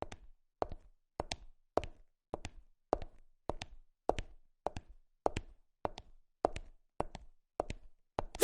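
Footstep sound effect: steady walking steps, each a sharp tap, a little under two a second. Near the end the steps come closer together with one louder step, then stop.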